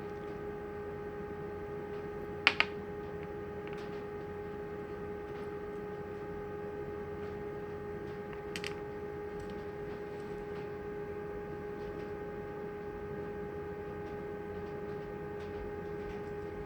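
Small clicks from a lock cylinder being taken apart with a hand tool: two sharp clicks close together about two and a half seconds in, and a fainter one a few seconds later. A steady electrical hum runs underneath.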